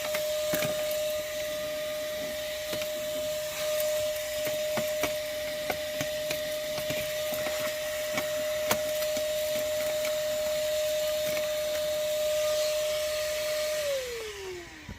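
Moosoo 18 V cordless shop vacuum running steadily with a constant whine and scattered clicks, then switched off near the end, its pitch falling as the motor winds down.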